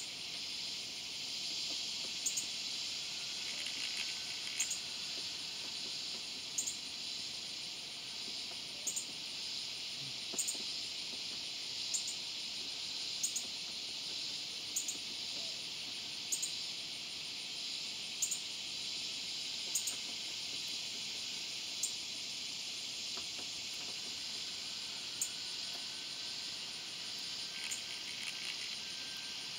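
Swamp cicada (Neotibicen tibicen) calling: a steady, even buzz that holds without a break. Short, sharp, high ticks recur about every one and a half to two seconds.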